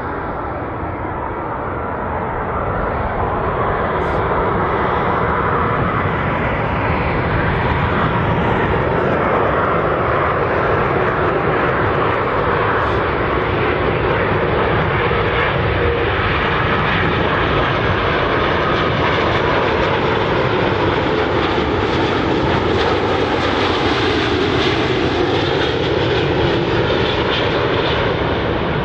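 Twin-engine jet airliner landing, its jet engines giving a steady whine that grows a little louder a few seconds in and stays loud.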